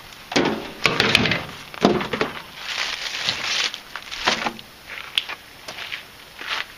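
Clear plastic packaging bag crinkling and rustling in irregular bursts as it is handled, followed by a few fainter clicks.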